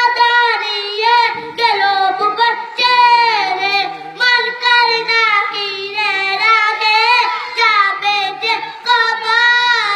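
A boy singing a naat, a Bengali Islamic devotional song, into a handheld microphone; his high voice carries a wavering melody in long phrases with short breaths between them.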